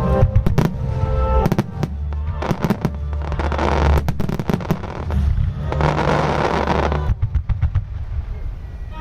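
Star mine fireworks bursting in quick succession, with a rapid run of bangs near the end and two spells of dense crackling in the middle, over a music soundtrack.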